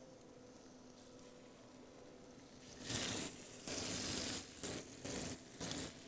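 Seasoned fish pieces on bamboo skewers sizzling in hot oil in a frying pan as they are laid in one after another: a quick run of sizzles, several in a row, starting about halfway through.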